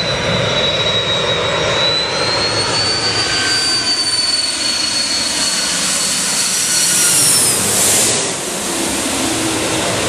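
Twin-engine jet airliner passing low overhead on final approach with its landing gear down, its engines giving a steady rush with a high whine. The whine climbs slightly as the jet closes in, peaks as it passes over about eight seconds in, then drops in pitch and fades a little as it moves away.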